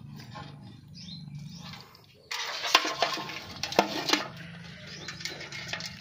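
Hands splashing in a shallow pool of muddy water, then the catch of eels and crabs dropped into a metal pot, with a sudden clatter and several sharp knocks against the pot between about two and four seconds in. A low steady hum runs underneath.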